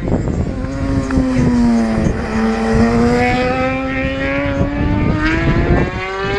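Racing motorcycle engine at high revs, pulling away up the road with its note rising steadily as it accelerates through a gear. Wind buffets the microphone underneath.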